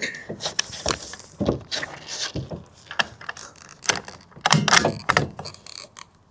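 Irregular mechanical clicks and knocks from a scoped bolt-action Savage Mark II .22 rifle being handled and adjusted on a bench rest, with a louder cluster of clicks about four and a half seconds in.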